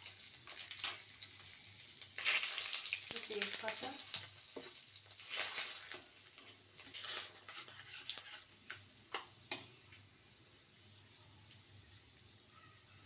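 Whole spices and bay leaves sizzling and spluttering in hot mustard oil in a kadai, stirred with a spatula. There are several louder crackling bursts in the first half and a couple of sharp clicks of the spatula against the pan a little past the middle. Then the sizzle settles to a quieter, steady fry.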